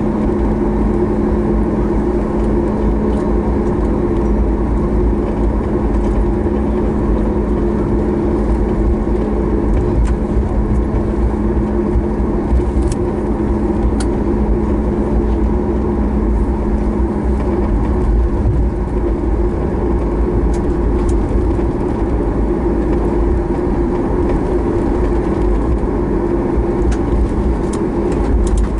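Cabin noise of a Boeing 737 MAX 8 taxiing after landing, heard from inside over the wing: a steady low rumble with a constant hum from its CFM LEAP-1B engines at idle, and a few faint clicks.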